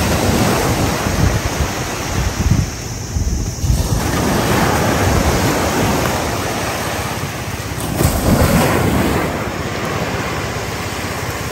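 Sea surf: small waves breaking and washing up over sand, the wash swelling and easing, with wind rumbling on the microphone.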